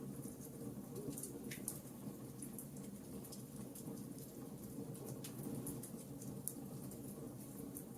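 Wood fire crackling in a fireplace: frequent irregular sharp pops and snaps over a low steady rumble.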